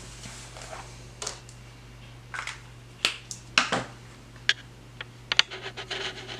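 Pens and art supplies being handled on a table: a string of sharp plastic clicks and taps, then a short rustle near the end.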